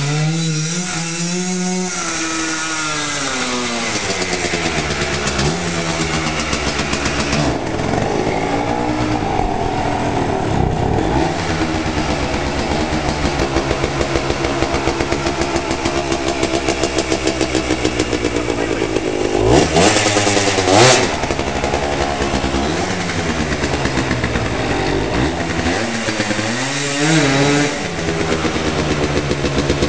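A 1999 Yamaha Blaster ATV's single-cylinder two-stroke engine with an FMF exhaust, running and revving. Its pitch climbs and falls again and again as it is ridden, and the highest, loudest revs come about two-thirds of the way through.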